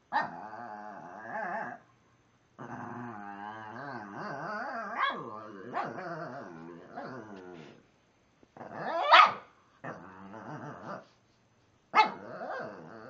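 Shih Tzu 'talking': drawn-out, wavering growl-like grumbles in several runs, each a second to five seconds long, with a sharp bark about nine seconds in and another about twelve seconds in. It is the noise the dog makes to get another dog to play.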